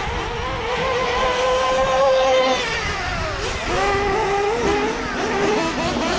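Traxxas Revo's 3.3 nitro two-stroke engine running at high revs: a high whine that holds steady, drops about two and a half seconds in as the throttle eases, then climbs again and wavers with the throttle.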